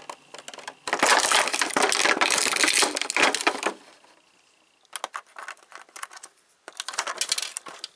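Clear plastic blister trays of an action-figure package crinkling and crackling as parts are pulled out of them: a dense stretch of crackling for about three seconds, then a short pause and two briefer bouts of clicks and crackles.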